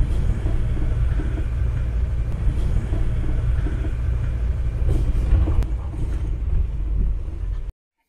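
Steady low rumble of a vehicle driving along a road, recorded from the moving vehicle; it cuts off suddenly near the end.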